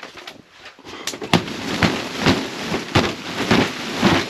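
Repeated thumps, about two a second, of snow being knocked off a high tunnel's polyethylene roof from underneath, each with a rush of noise; the heavy snow load is being cleared so the hoop structure or the poly won't give way.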